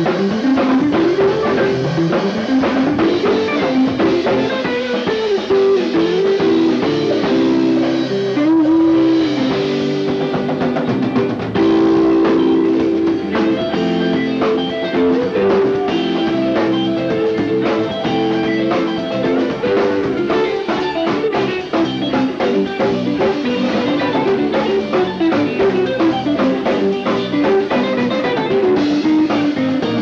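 Live rock band playing an instrumental passage: electric guitars over bass and a drum kit, with guitar lines sliding up and down in pitch.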